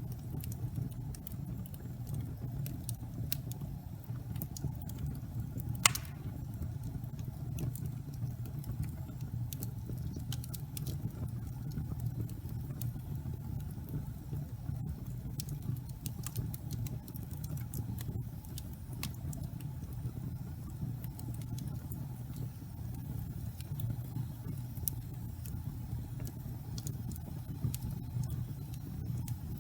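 Wood fire burning in a fireplace: a steady low rumble with scattered sharp crackles and pops, the loudest pop about six seconds in.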